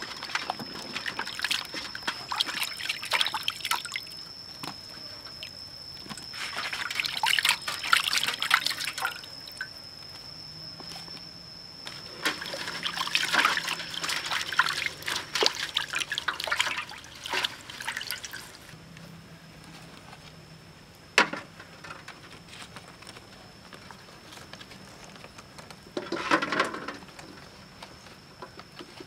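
Hands washing vegetables and eggs in a metal basin of water: several bursts of splashing and swishing, with dripping and trickling between them. A single sharp click comes about two-thirds of the way through.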